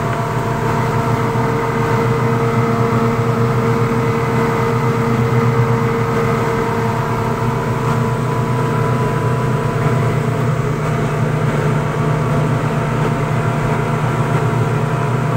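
Passenger boat's engine running steadily under way: a loud, even drone with a rush of wind and water over it.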